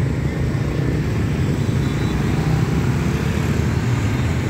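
Motorbike traffic passing over a railway level crossing, with a steady low engine drone underneath.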